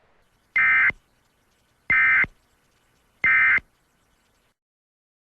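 Emergency Alert System SAME digital data bursts: three short, identical, warbling two-tone bursts about a second and a third apart, the end-of-message code that closes an EAS alert.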